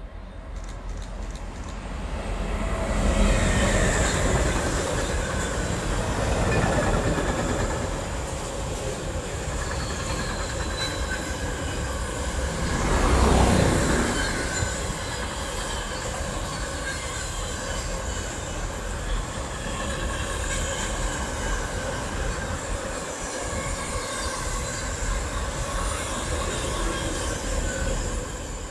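A train running past on the rails, with steady high-pitched wheel squeal and clatter from the wheels over the track. It builds over the first few seconds and is loudest again about 13 seconds in.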